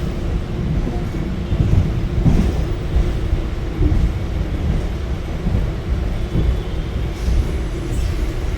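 Suburban electric local train running, heard from inside the coach: a steady low rumble of wheels and carriage.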